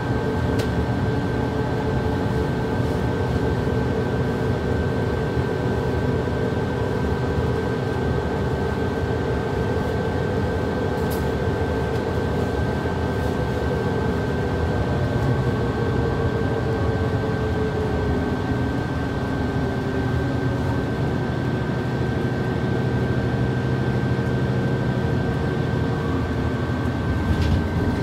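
Cabin noise of a moving bus: a steady engine and drivetrain sound with a constant high whine, and a mid-pitched drone that slides down in pitch about halfway through. A few faint clicks come through.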